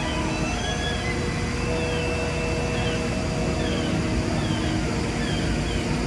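Steady low rumble of the heavy-haul convoy's engine moving the loaded multi-axle trailer, with held tones and short falling notes repeating about once a second over it.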